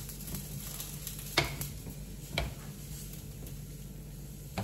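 A spoon stirring thick appam batter in a glass bowl: a wet scraping, broken by a few sharp clicks of the spoon against the glass.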